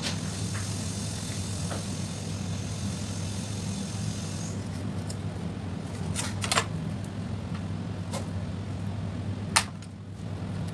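Kitchen knife slicing a raw fish fillet on a plastic cutting board, with a few sharp knocks of the blade on the board, the loudest about six and a half and nine and a half seconds in. A steady low hum runs underneath.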